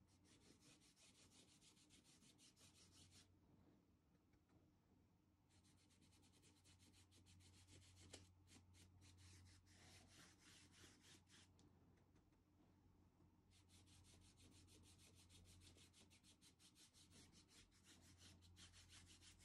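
Flat paintbrush scrubbing craft paint into a fabric apron in quick back-and-forth strokes, faint, in three spells that pause about three seconds in and again about twelve seconds in.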